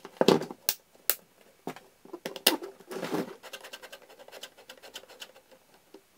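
Handling noise from a STAHLWERK HKP-250 ST hot glue gun as it is readied for use: a string of sharp plastic clicks and knocks with some scraping while a glue stick is pushed into the back of the gun and its detachable power cable is plugged in. The loudest clicks come in the first second and again about halfway through.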